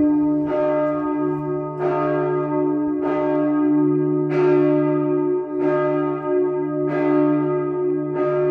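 Church tower bells ringing, a fresh stroke about every 1.3 seconds, seven in all, over a continuous hum of several bells sounding together.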